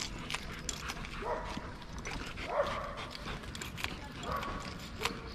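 A dog barking three times, short calls that fall in pitch, spread over a few seconds.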